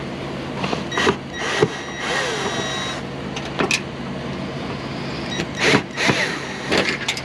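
Metal screws squeaking and clicking as a light fixture is unscrewed by hand with a screwdriver, with several sharp metallic clicks, over a steady low hum.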